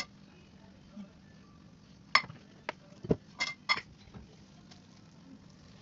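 A frying pan and a ceramic plate clinking and knocking together as thick, sticky cooked yema mixture is tipped and scraped out of the pan onto the plate. There is one sharp clink at the start, then a cluster of about five clinks and one duller knock between about two and four seconds in.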